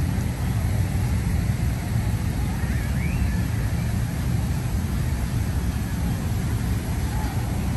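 Steady low rumble of downtown city street ambience.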